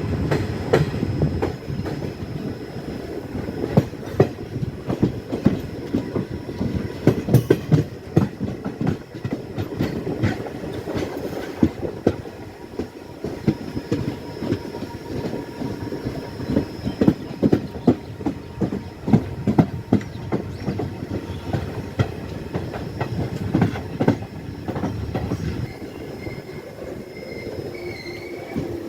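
Passenger train running, its wheels clattering irregularly over rail joints with many sharp clicks over a steady rumble, and a faint wheel squeal near the end.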